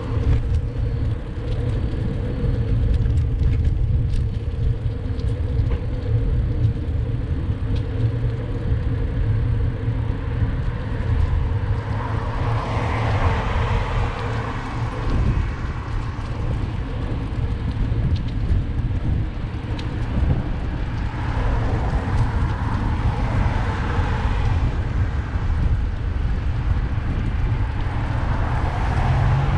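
City road traffic: a steady low rumble with vehicles passing, one swelling by about twelve seconds in, another around twenty-two seconds, and one near the end.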